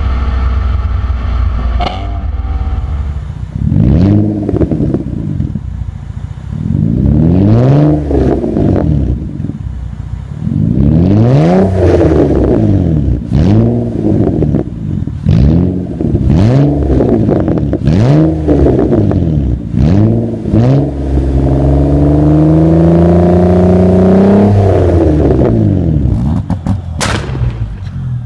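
Sports-car engines with aftermarket exhausts revved while parked: a low idle, then a run of quick free revs, each rising and falling back, about one every two seconds, then a longer rev climbing steadily for a few seconds. Near the end come sharp pops and crackles from the exhaust.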